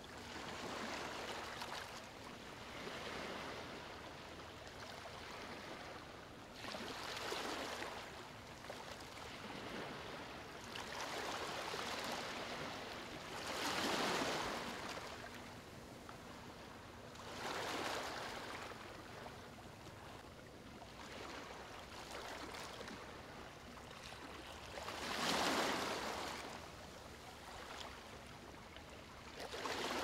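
Ocean waves: a steady hiss of moving water with a louder surge every few seconds, the strongest about halfway through and again near the end.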